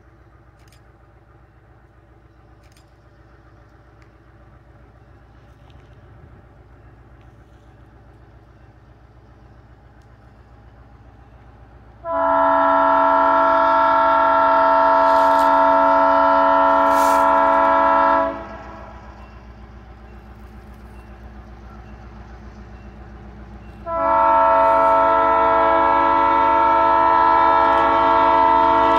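Diesel locomotive approaching, a low rumble growing slowly louder, then its air horn sounding a chord in two long blasts. The first, about twelve seconds in, lasts about six seconds; the second starts about six seconds after it ends and is still sounding near the end.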